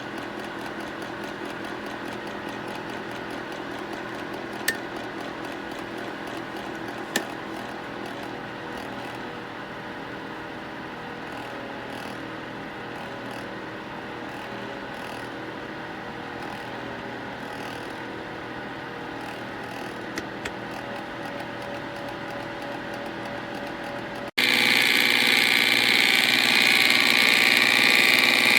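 Portable electric space heater's fan running with a steady whir, with a couple of faint clicks early on. About 24 seconds in it cuts abruptly to a louder, airier rush of fan noise.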